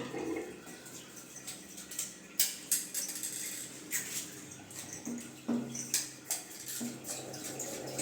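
Scattered light clicks and knocks of metal plumbing fittings being handled and fitted.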